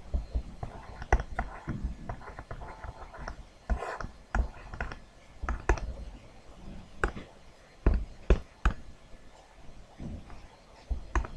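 Stylus tapping and scratching on a tablet PC screen while handwriting, with irregular sharp clicks and knocks. Faint murmured voices are underneath.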